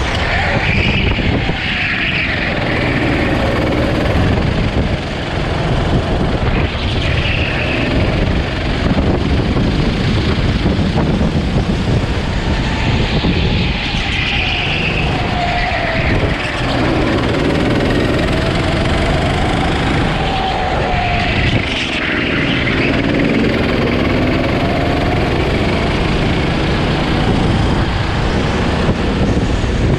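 Go-kart engine revving up and falling back again and again as the kart brakes and accelerates through the corners, heard from onboard under heavy wind noise on the microphone.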